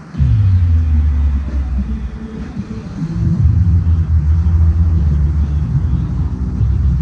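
Background music: a bass-heavy electronic track with a deep, steady sub-bass and held synth notes.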